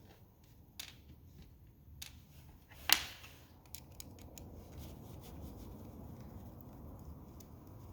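Scattered light clicks and taps of small metal reel parts and a tool being handled on a workbench, with one sharper click about three seconds in.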